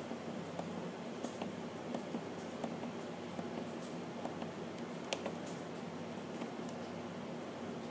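Faint clicks of the HP Deskjet Ink Advantage 3545's control-panel buttons being pressed repeatedly, about one click every half to three-quarters of a second, with the sharpest about five seconds in. A steady low hum runs underneath.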